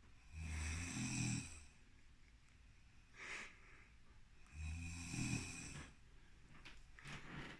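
Snoring during sleep: two long snores about four seconds apart, with a short, softer breath between them.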